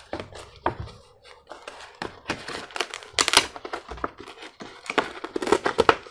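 Large packaging wrapper crinkling and rustling as hands unfold and pull at it. The crackles come in quick clusters, busiest from about two to three and a half seconds in and again around five to six seconds.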